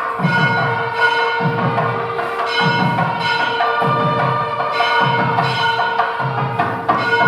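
Background music: a held drone tone with bell-like notes over a percussive beat that repeats about every second.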